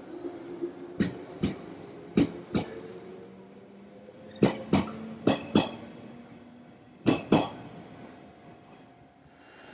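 A JR 115-series electric train pulls away and its wheels clack over rail joints in five quick pairs of knocks, one for each bogie's two axles, under a low motor hum that rises slowly in pitch as it picks up speed. The clacks stop and the sound fades as the last car clears.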